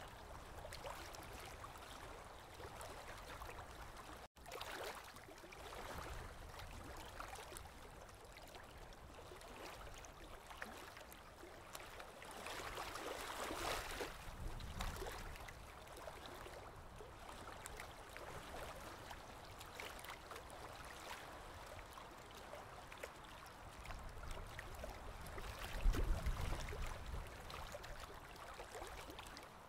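Aquarium water trickling and gurgling steadily, as water circulates in a goldfish tank. The sound cuts out for an instant about four seconds in, and a low thump sounds near the end.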